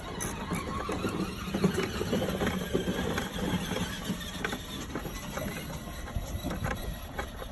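Short hand ratchet with a 13 mm socket clicking quickly as a bolt beside the windshield is backed out, with small squeaks and knocks of metal.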